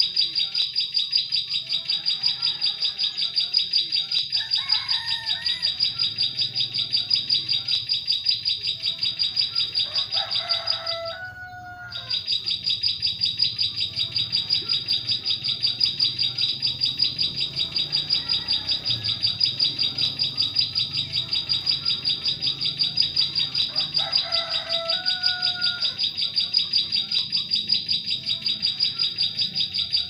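Ciblek sawah, a small prinia, calling in a fast, unbroken series of high chirps, about four a second, as a bird-trapping lure call. The series breaks off for about a second near the middle. A few lower whistled calls from other birds come in between.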